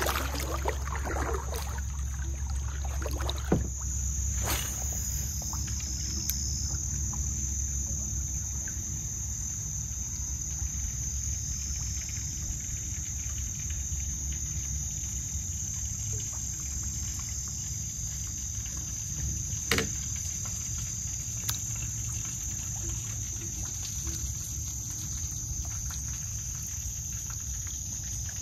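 Insects chirring in a steady high drone over a constant low rumble, broken by two sharp knocks, a few seconds in and again about two-thirds through.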